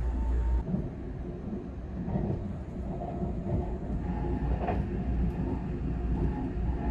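Running noise of a moving train heard from inside the carriage: a steady rumble of wheels on the rails. About half a second in, the sound changes abruptly where one clip cuts to the next.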